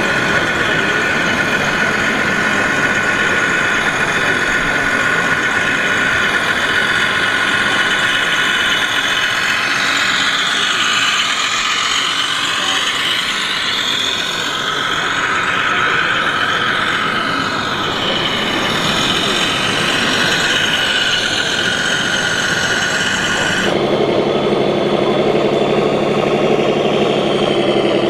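Radio-controlled model trucks whining and squealing, with high tones sliding up and down across each other in the middle. About 24 s in it cuts to a lower, steady diesel-engine idle from a model truck's sound unit.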